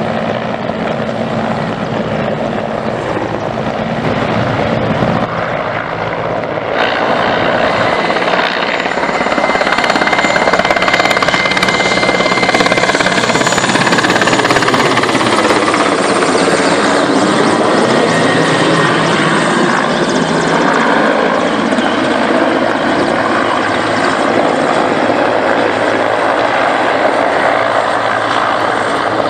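Mil Mi-8 helicopter's twin Klimov turboshaft engines and rotors running as it flies low overhead, a steady turbine whine over heavy rotor noise. The sound gets louder about seven seconds in and stays loud as the helicopter passes.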